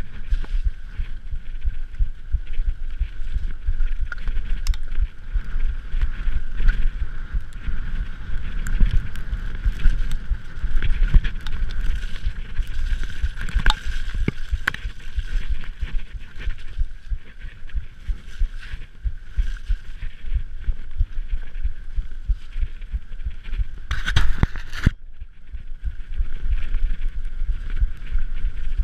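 Mountain bike ridden down a rough, muddy track, picked up by a chest-mounted camera: constant low rumble with many knocks and thumps from the bumps, and a steady high hum. Near the end a brief, harsher rush of noise, then a moment quieter.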